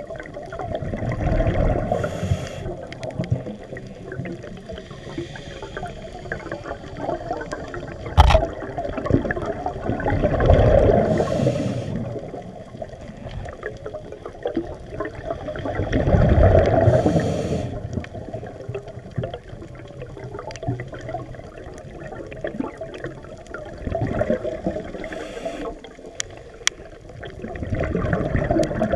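Underwater scuba breathing: a diver's regulator, with exhaled bubbles rushing up in a slow swell every several seconds and a hiss on the breaths between. One sharp click comes about eight seconds in.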